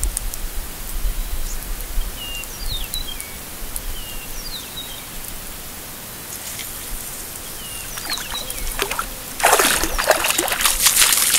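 Runoff water trickling and running into a lake, with small birds chirping a few times. Near the end a loud rushing, splashing noise comes in and stays.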